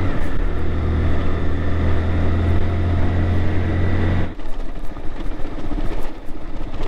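Honda CG 160 Titan's single-cylinder four-stroke engine running steadily under way on a dirt road, until the throttle is shut about four seconds in and the engine note drops away. After that, mainly tyre and wind noise with small knocks as the bike rolls over loose gravel.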